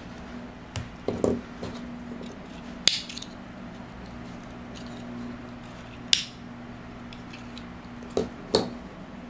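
A few sharp clicks and light taps from handling small crochet pieces and tools on a wooden tabletop. The two brightest come about three and six seconds in, with smaller taps near the start and the end, over a steady low hum.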